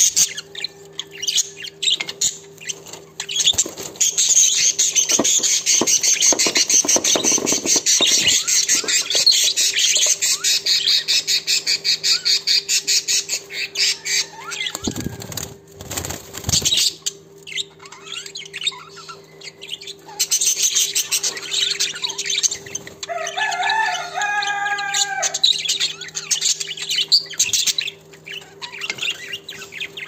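Budgerigars chattering in a rapid, scratchy warble, the song a male budgie gives while mounting a hen to mate. The chatter breaks off briefly around the middle, where a few low thumps sound, and a clearer pitched call rings out about three-quarters of the way through.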